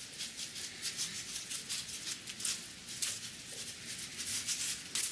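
Contact adhesive being spread by hand along a wooden strip: quick scratchy rubbing strokes, about three or four a second, kept up throughout.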